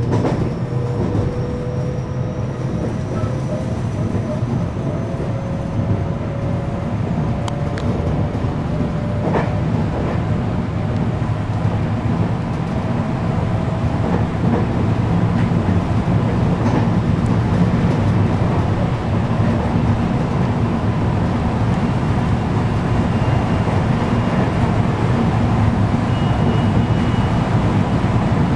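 521 series electric train heard from inside the passenger car while accelerating away from a station: a steady rumble of wheels on rail, with the traction motor whine rising slowly in pitch over the first half and a few brief clicks from the track. The running noise grows slightly louder as speed builds.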